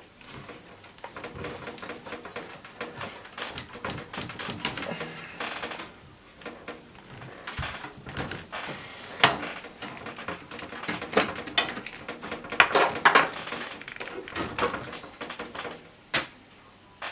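Irregular clicks, scrapes and rattles of cables and plastic connectors being wiggled and pulled inside an old desktop PC's metal case; the plugs are stuck and hard to get out. The sharpest knocks come in the middle of the stretch.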